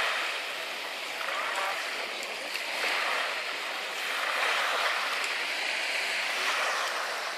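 Small waves washing at the water's edge: a steady hiss that swells and eases every couple of seconds, with faint voices of bathers.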